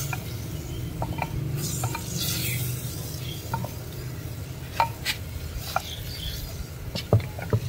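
Wooden spoon stirring freshly added meat through the gravy in a clay handi over a wood fire, with a low sizzle and scattered, irregular knocks of the spoon against the pot.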